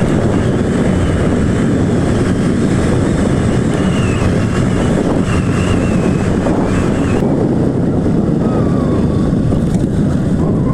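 Motorcycle running at road speed with steady wind rush on the microphone; the higher hiss drops away about seven seconds in.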